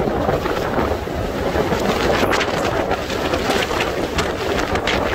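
Steady rushing wind noise buffeting the microphone, with gusts now and then over a constant low rumble, as heard from an aircraft flying over the crater.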